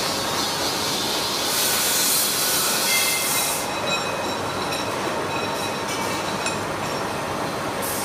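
Machine tools cutting steel axle shafts: a steady metalworking din, with a loud high hiss from about one and a half to three and a half seconds in, then a steadier run with a few faint high whines.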